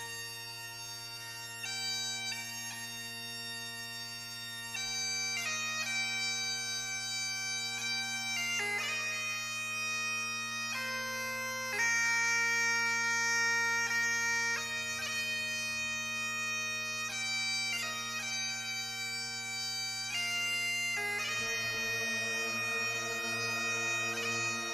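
Slow instrumental music: a melody of long held notes over a steady low drone.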